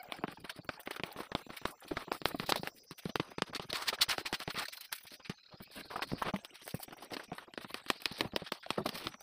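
Plastic spreader scraping glue across a plywood board in quick back-and-forth strokes: a dense run of small irregular clicks and scrapes, with a brief pause about five seconds in.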